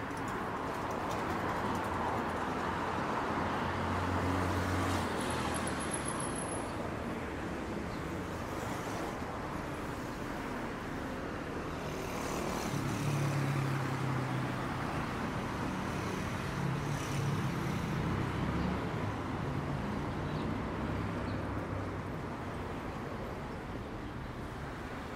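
Street traffic noise: a steady wash of cars and engines on a busy city avenue, with vehicles passing close several times, loudest in the middle.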